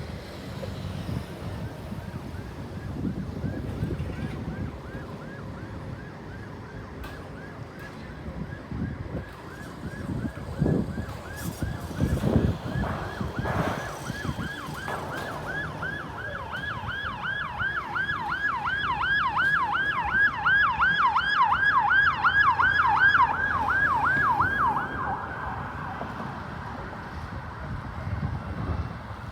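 Ambulance electronic siren yelping in rapid repeated sweeps, about three a second, growing louder to a peak past the middle and then fading away as the vehicle passes. Road traffic rumbles underneath.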